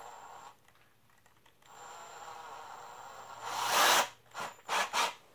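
A few short scraping, rubbing sounds: one longer and louder about three and a half seconds in, then three quicker ones, over a faint steady hum.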